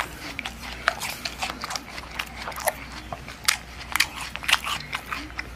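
A cat licking and nibbling at its own paw close to the microphone: a quick, irregular run of small wet clicks and smacks.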